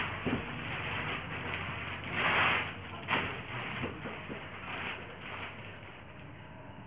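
Plastic bags rustling and crinkling as speaker drivers are handled and unwrapped, with a louder rustle about two seconds in and a short knock just after three seconds.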